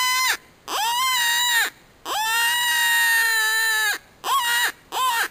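Predator call sounding a series of drawn-out, steady-pitched wailing cries that rise at the start and drop away at the end, the longest lasting about two seconds, then two short cries near the end, used to lure in a coyote.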